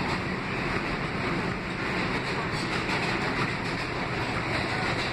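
Interior of an R160 subway car running through the tunnel: a steady rumble and hiss of wheels on rail with no change in pace.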